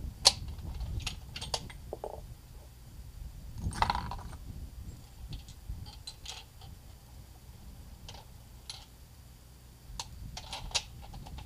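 Scattered metallic clicks and knocks of a bolt-action rifle being handled between shots, with one sharp click right at the start, a heavier clatter about four seconds in and a quick run of clicks near the end. A low rumble runs underneath.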